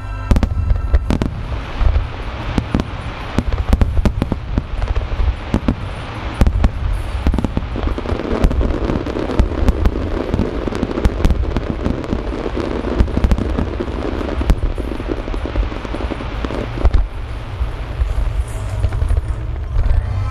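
A fireworks display: aerial shells bursting in rapid succession, a dense barrage of sharp booms over a continuous low rumble. Through the middle stretch there is a thick crackling hiss from crackling stars.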